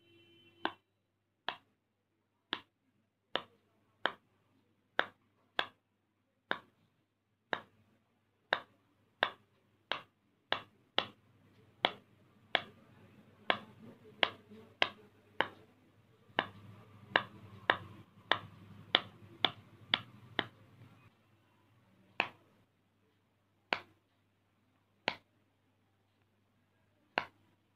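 Silicone push-pop fidget toy bubbles popping one at a time under a fingertip, each a sharp short pop. About thirty pops in a steady series, coming roughly twice a second in the middle and spreading out to one every second or two near the end.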